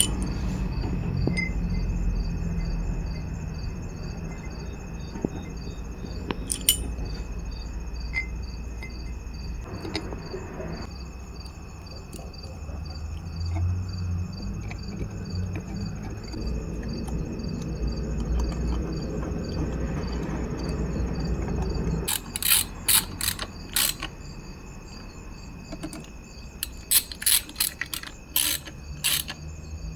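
Crickets chirping steadily in the background, over a low rumble; in the last third come clusters of sharp clicks from work on the motor.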